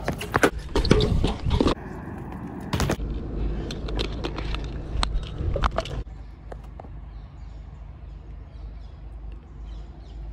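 BMX bike ridden on a concrete skatepark: tyres rolling on concrete, with sharp knocks and clatters of the bike hitting ledges and landing in the first six seconds, the loudest about three seconds in. After that it is mostly a quieter, steady tyre roll with light rattles.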